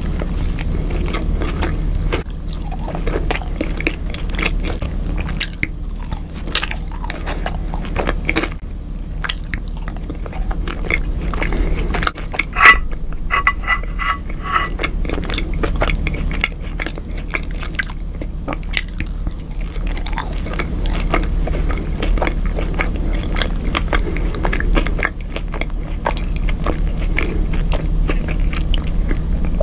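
Close-up eating sounds: biting into and chewing a chicken sandwich, with crunching and wet mouth clicks. About halfway through there is one sharp loud click followed by a brief squeaky tone.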